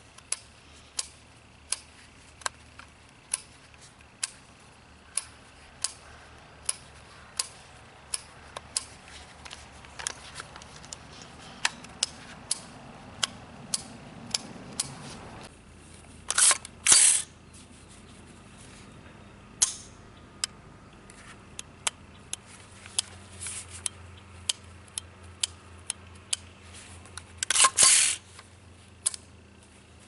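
Metal clicks and clacks from a Smith & Wesson M&P15 AR-15 rifle's action being worked by hand. A run of small sharp clicks comes about every three-quarters of a second, then there are two loud clacks of the charging handle and bolt partway through and another loud clack near the end.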